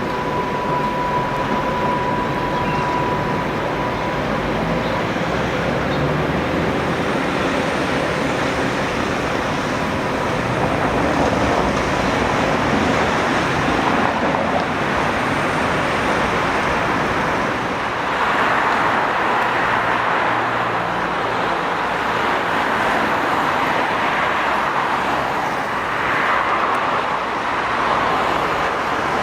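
Street traffic with a Tatra T3 tram running along the street, a steady rolling noise that swells in the second half. A thin high tone sounds for the first few seconds.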